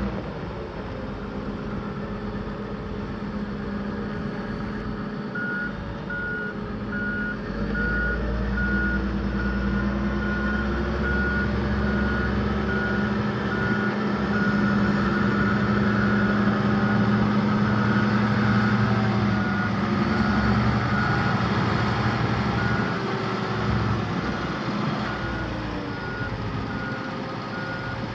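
A Komatsu SAA6D125E-5 six-cylinder diesel in a Komatsu HM300-2 haul truck running, its note rising and falling. From about five seconds in a backup alarm beeps at an even pace, the sign of the truck in reverse. The beeping pauses briefly near the end, then starts again.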